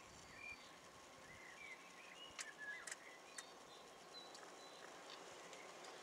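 Faint outdoor ambience with scattered short bird chirps, broken by three sharp clicks around the middle.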